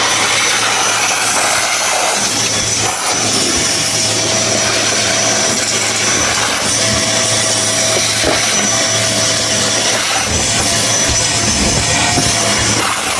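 Vacuum cleaner running at full suction: a loud, steady rushing noise with a thin high whine from the motor.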